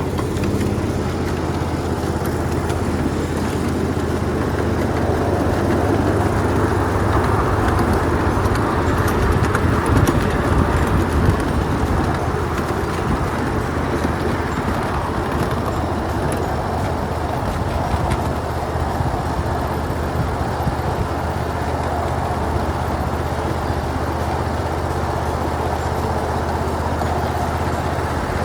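A motor vehicle's engine running steadily under an even wash of noise, a little louder around ten seconds in.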